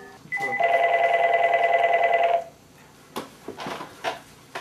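A telephone rings once, a trilling ring of about two seconds. A few light knocks follow.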